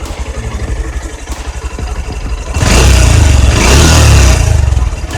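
Honda X-Blade BS6's single-cylinder engine and twin-outlet exhaust idling with a steady pulse, then revved up sharply about two and a half seconds in, held high for about two seconds and easing off briefly near the end.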